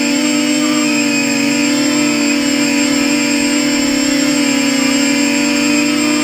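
Versacopter 280 quadcopter's electric motors and propellers running in flight: a loud, steady buzz whose pitch wavers slightly as the throttle shifts.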